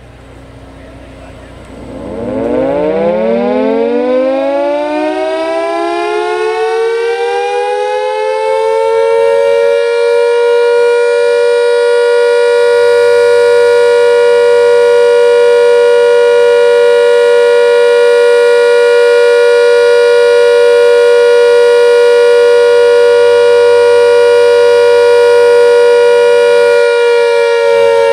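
Castle Castings mechanical siren winding up from a standstill, its pitch rising over several seconds, then holding one steady, loud tone: the steady Alert signal.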